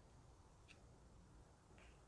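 Near silence: room tone, with a faint click about two-thirds of a second in.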